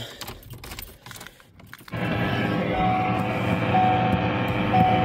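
Faint clicks, then about two seconds in a steady background music track starts, with a short high note repeating about once a second.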